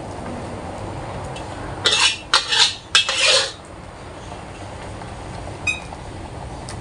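Metal spatula scraping against a black wok in three quick strokes about two seconds in, as fried rice vermicelli is scooped out onto a plate, over a steady low background hum. A light clink follows near the end.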